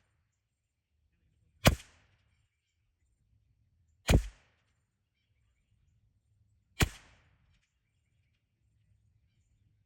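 Three shots from a CZ 457 bolt-action .22 LR rimfire rifle, each a sharp crack with a short tail, spaced about two and a half seconds apart.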